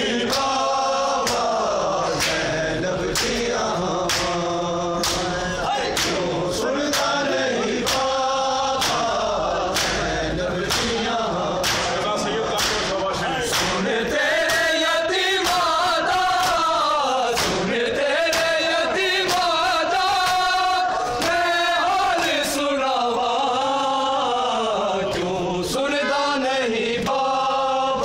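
A crowd of men chanting a noha together in unison, with a steady rhythm of sharp slaps from open-handed chest-beating (matam).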